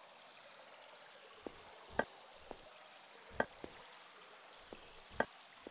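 Quiet pause: faint steady hiss with a few soft, short clicks at irregular intervals, the clearest about two, three and a half and five seconds in.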